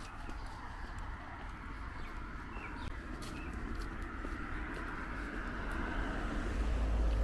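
Street traffic noise with a steady low rumble, swelling toward the end as a vehicle draws nearer.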